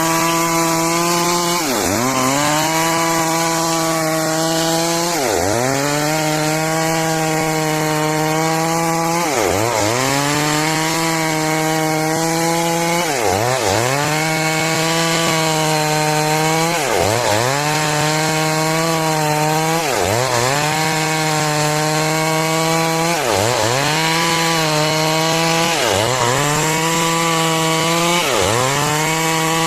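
Stihl MS 382 two-stroke chainsaw running at high revs while ripping along a log to cut boards. About every three to four seconds its pitch dips sharply and comes straight back up.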